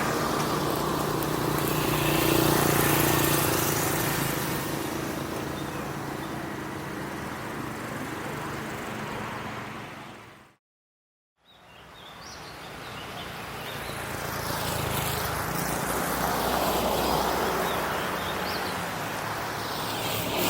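Street traffic: motor vehicles running and passing, swelling and fading. About halfway through the sound fades out to a second of silence, then fades back in to more traffic.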